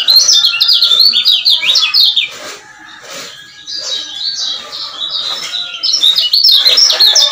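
Male kecial kuning (lemon-bellied white-eye) singing fast, rapid-fire runs of short, sharp, high chirps. The song is loud for the first two seconds, breaks off briefly about halfway, and comes back loud near the end.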